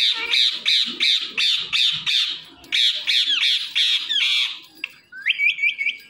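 Indian ringneck parrot squawking loudly in rapid harsh calls, about three to four a second, in two bursts with a short break between them. Near the end it gives a short rising call followed by a few quick chirps.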